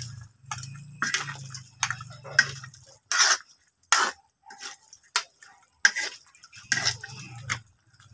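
Long metal ladle stirring a thick pork stew in a large metal wok, scraping and clinking against the pan in irregular strokes about once or twice a second. A low hum comes and goes underneath, in the first couple of seconds and again near the end.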